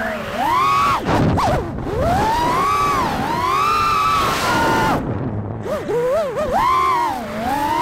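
FPV quadcopter's brushless motors whining, the pitch swooping up and down over and over as the throttle is worked.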